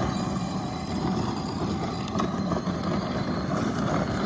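A vehicle engine running steadily with a low rumble, most likely the side-by-side UTV idling beside the puddle.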